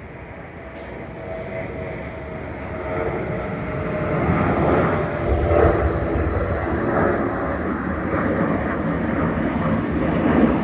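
Aircraft engine noise from a plane passing near the airport: a broad rumble that grows louder over the first few seconds and then holds.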